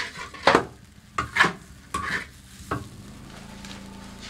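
Spatula scraping and tossing fried rice in a very large wok, about five strokes in the first three seconds; after that only a steady low hum remains.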